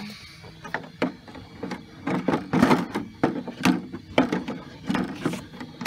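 Plastic body shell of a Traxxas X-Maxx RC truck knocking and rattling against the chassis as it is handled and fitted on: irregular knocks and clatter, busier from about two seconds in.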